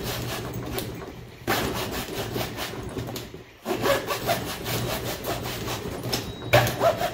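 Large hacksaw cutting through a plastic model part with quick back-and-forth strokes. It pauses briefly about a second in and again around three and a half seconds in.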